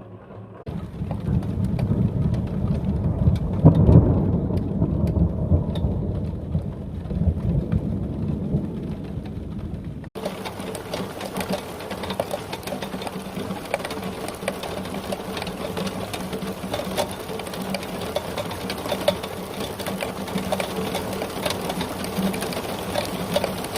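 A long rumble of thunder over rain, loudest about four seconds in. After a sudden cut about ten seconds in, heavy rain falls steadily with many sharp ticks of drops striking a hard surface.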